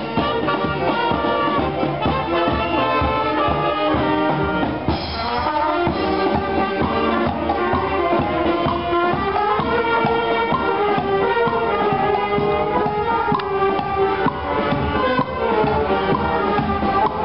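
Marching brass band (fanfare) playing a tune: trumpets, saxophones and a sousaphone over a steady beat.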